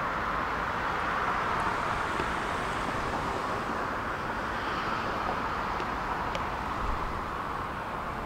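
Steady city street traffic noise: a continuous, even rush of passing road vehicles.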